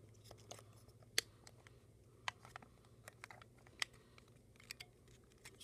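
Scattered light clicks and taps as a GoPro camera in its plastic housing is handled, irregular and sharp, the loudest about a second in, over a faint steady hum.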